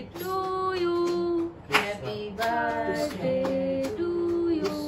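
Music with a woman singing in long held notes, and one sharp knock a little under two seconds in.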